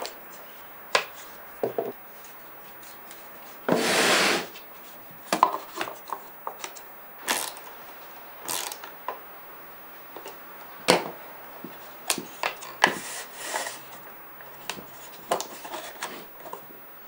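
Hand work on a small plywood box: a screwdriver fixing a brass piano hinge, and the hinged wooden handle being folded and lifted. Scattered clicks and wood-on-wood knocks, with two longer rubbing noises about four and thirteen seconds in.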